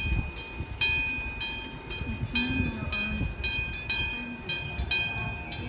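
Electric gong-type railway crossing bell struck over and over, about two to three times a second, each clang ringing on in a clear metallic tone, with a low rumble underneath.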